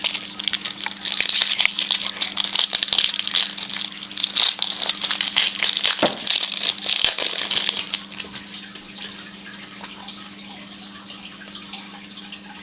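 Baseball card pack wrappers crinkling and tearing open, a dense crackle of small clicks, for about eight seconds. After that it goes quieter, leaving a steady low hum.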